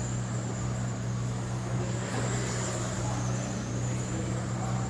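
Electric RC race cars' motors whining, the high pitch rising and falling as the cars speed up and slow down around the track, over a steady low hum.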